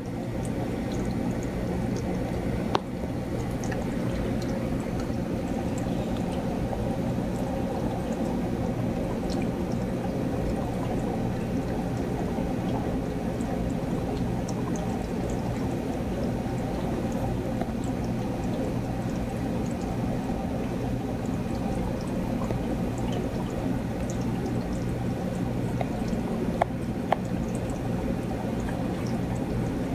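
Steady rushing background noise with a low hum, unchanging throughout, and a faint click about three seconds in and another near the end.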